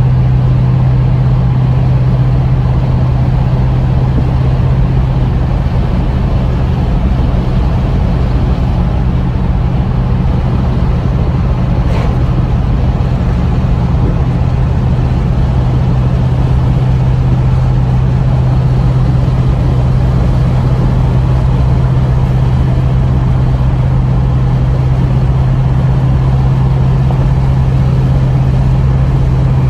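A Ford Mustang's engine and road noise heard from inside the cabin while cruising at a steady speed, a constant low drone.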